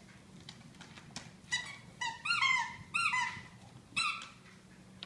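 A string of short, high-pitched squeals, each rising and falling in pitch, from two dogs playing tug-of-war with a plush toy. They come in quick pairs and triples between about one and a half and four seconds in.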